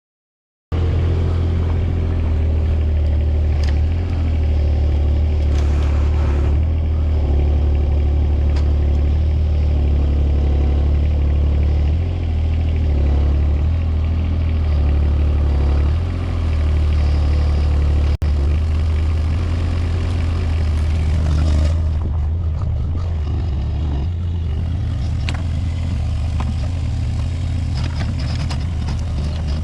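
An engine running steadily with a deep, even hum, starting abruptly just under a second in after a cut from silence.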